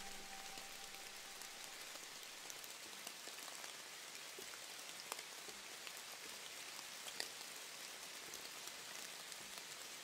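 Soft, even patter like light rain, with scattered small ticks. The last held notes of the closing music die away in the first second or so.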